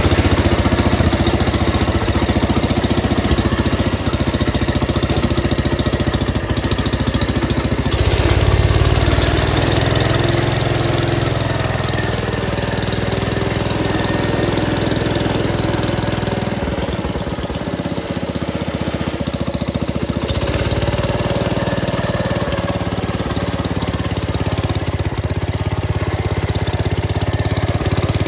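Gravely Commercial 10A walk-behind tractor engine running steadily, with its low note shifting about eight seconds in and again between about seventeen and twenty seconds in.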